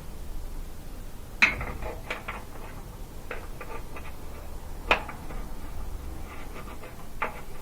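Small clicks and metallic taps as a replacement dryer thermal fuse is worked into its mounting hole and pushed back into place, with two sharper clicks about a second and a half in and about five seconds in.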